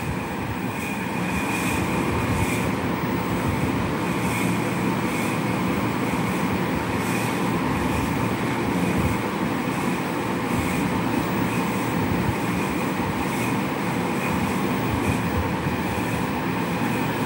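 Steady hum and hiss of background machinery, with a faint high tone that swells and fades about every two seconds.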